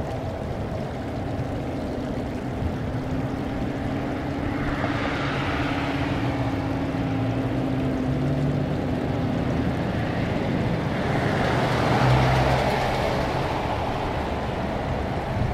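Boeing 787 airliner's jet engines rumbling steadily as it rolls down the runway after landing. The noise swells twice, the second time about three-quarters of the way through and loudest.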